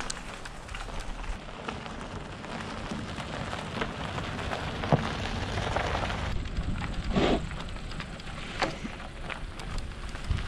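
Bicycle tyres rolling along a road: a steady hiss with scattered small clicks and rattles.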